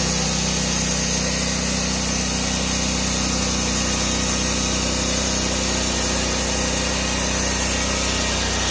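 Portable sawmill's engine running at a steady, unchanging speed.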